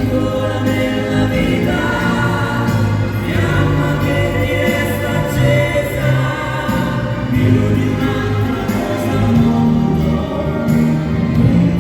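Slow waltz music with voices singing over sustained chords.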